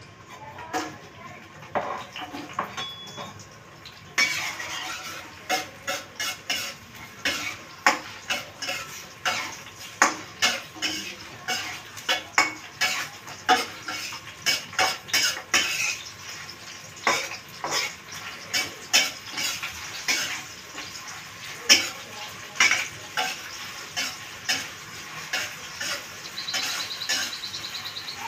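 Sliced onion frying in oil in a wok, the sizzle starting suddenly about four seconds in, while a metal spatula is stirred through it and clinks and scrapes against the pan one or two times a second.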